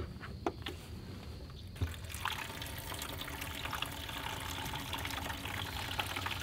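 Water being poured into the reservoir of a portable ice maker, a steady trickling fill that starts about two seconds in after a few clicks of handling.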